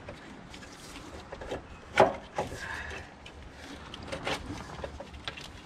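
Scattered clinks and knocks of hand tools and metal parts during engine-mount removal, the loudest a single sharp knock about two seconds in.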